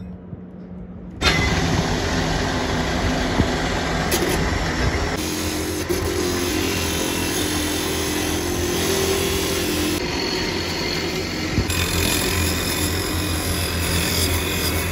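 Abrasive disc grinding steel axe-head blanks: a loud, steady grinding that starts suddenly about a second in, its tone shifting a few times.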